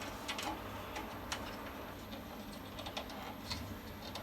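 A few faint light clicks of hand tools working on a bandsaw's lower blade-guide assembly, over a steady low hum.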